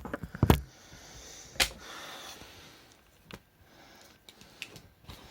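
Handling noises as a plastic power adapter is pulled from a wall socket and swapped: a quick run of sharp clicks and knocks at the start, another knock about a second and a half in, then faint scattered ticks, with a soft breathy hiss between.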